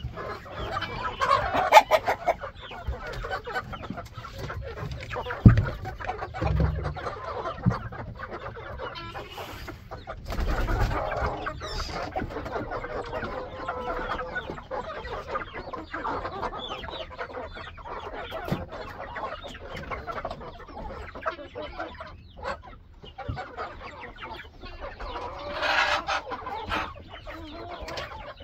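A flock of chickens, hens and roosters, clucking and calling continuously. A few low thumps come through, the loudest about five seconds in, and a louder burst of calling comes near the end.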